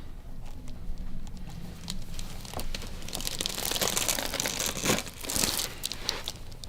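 Crinkling and rustling on a chiropractic treatment table, loudest in the second half, with a sharper click about five seconds in.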